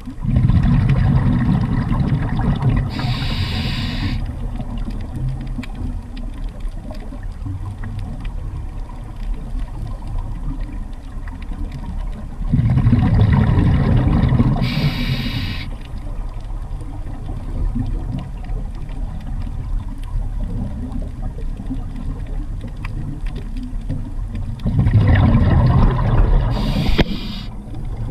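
Underwater sound of a scuba diver breathing: a steady low water rumble, with three louder stretches of exhaled bubbles about twelve seconds apart, each ending in a short hiss of air through the regulator.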